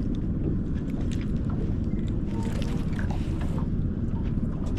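Wind buffeting the microphone in a steady low rumble, with a few faint ticks over it.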